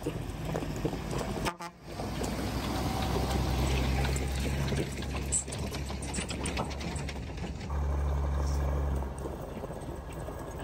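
Heavy diesel trucks running as they climb a snow-packed winter road, with two long low horn blasts, the first about two and a half seconds in and a shorter one near the end.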